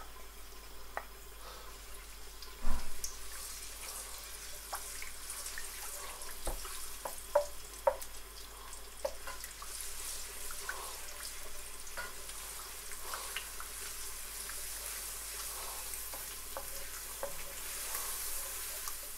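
Minced garlic sizzling in hot oil in a nonstick wok, with a wooden spoon stirring and knocking against the pan now and then. The loudest knock comes about three seconds in.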